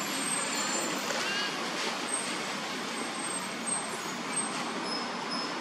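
Steady outdoor background noise with a few faint, short high chirps about a second and two seconds in.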